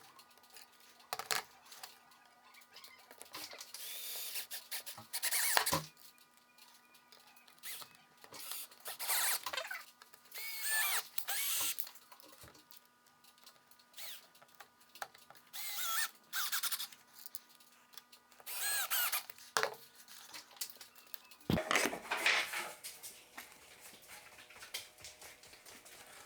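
Handheld power tool working wood in short bursts of one to two seconds, about seven times, its pitch wavering under load.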